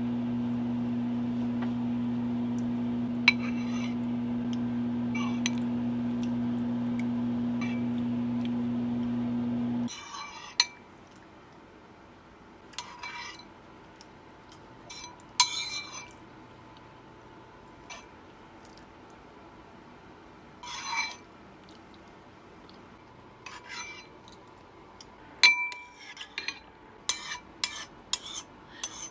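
A steady, low electrical hum runs for about ten seconds and cuts off suddenly. It is followed by scattered light clinks and knocks, thickening into a quick run of them near the end.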